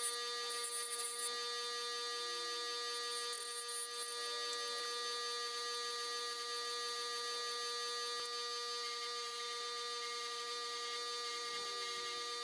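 Bench grinder with a wire wheel brushing rust off a sheet-metal flywheel cover, the audio sped up eight times so the motor's hum becomes a steady high-pitched buzz.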